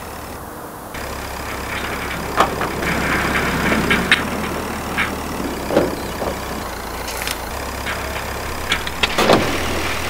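Small vehicle engine idling steadily, with scattered clanks and clicks of machinery. A louder knock comes about nine seconds in.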